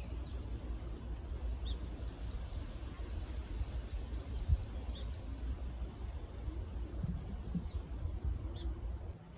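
Small birds chirping, with a run of quick high notes repeated about three times a second through the first half, over a steady low rumble. There is a single soft thump about halfway through.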